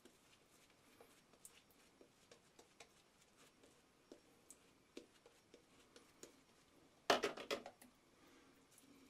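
Vintage 'The Artist' straight razor scraping through lathered stubble in short strokes: faint, crisp scratches and ticks. About seven seconds in, a brief louder burst of clattering and rustling.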